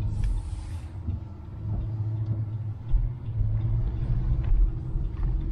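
Low, steady rumble of a road vehicle's engine and tyres, with small swells in loudness.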